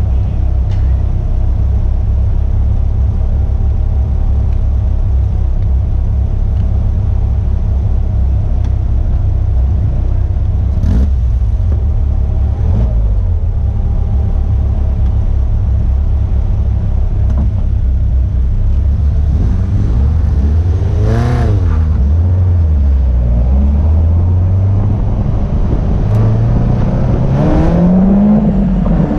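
Caterham Seven race car's engine idling with a steady low rumble, then the throttle blipped several times about two-thirds of the way through and the revs rising as the car pulls away near the end.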